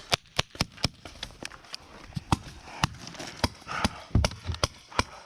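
A string of sharp, irregular paintball marker shots, about two or three a second.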